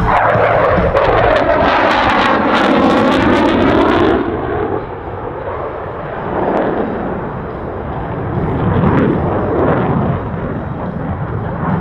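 CF-18 Hornet fighter's twin jet engines in a loud low pass, with a sweeping tone as it goes by. After about four seconds the sound turns to a lower rumble that swells and fades as the jet flies away.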